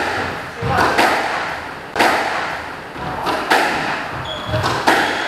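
Squash ball being struck by rackets and smacking against the court walls during a rally. There are about five sharp cracks, roughly one every second or so, each echoing around the enclosed court.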